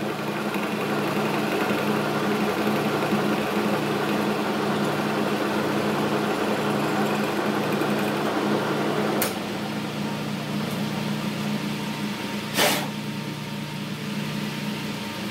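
Logan metal lathe running with a steady hum while the tool takes a cut into the wall of the turning part. About nine seconds in the cutting noise drops off with a sharp click, and a single sharp clunk follows a few seconds later while the machine keeps humming.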